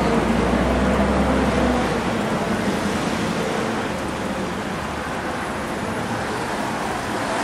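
Steady hiss of traffic on a wet road with rain falling, a vehicle's engine hum standing out for the first couple of seconds before fading.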